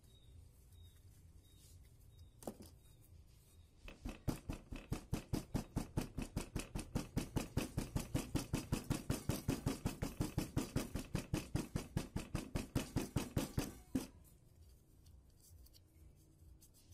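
Hammer tapping a Sony Cyber-shot camera's front panel wrapped in a cloth towel. One tap comes about two seconds in, then a fast, even run of muffled taps, about five a second, that stops abruptly.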